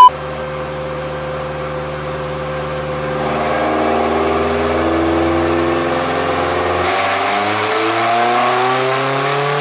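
Honda B20 VTEC four-cylinder engine on open headers, running on a chassis dyno. It holds a steady speed for about three seconds, then its revs climb slowly and evenly through a dyno pull.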